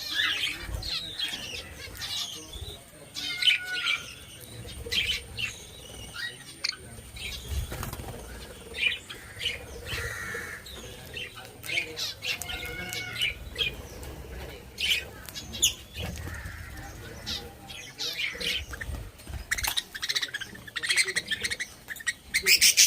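A flock of pet birds chirping and calling again and again, with bursts of wing flapping.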